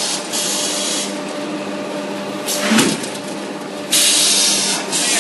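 Automatic clay-cutting machine on a pug mill running with a steady hum, with stretches of loud hiss in the first second and again from about four seconds in, and a short sharp clack a little before three seconds in.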